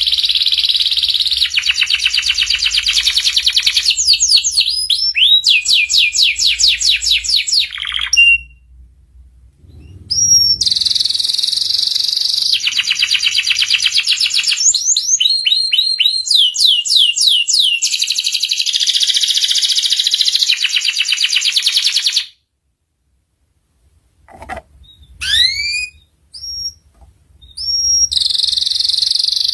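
Domestic canary singing a loud, high song of long rapid trills and rolls, with runs of quick sweeping whistled notes. The song breaks off briefly about a third of the way in, then again for a second or two near the end before short chirps resume.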